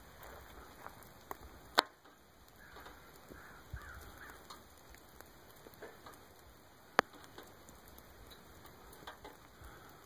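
Meltwater and bits of ice dripping off rime-coated pine branches as the ice melts in sunshine: scattered light ticks, with two sharp clicks about two seconds and seven seconds in.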